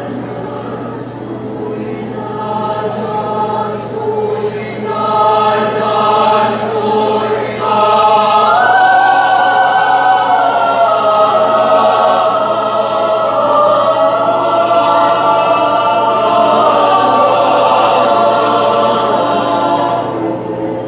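Mixed choir singing sustained chords, growing louder about five seconds in and again about eight seconds in as the upper voices take a high held line. The phrase dies away just before the end, over a steady low hum.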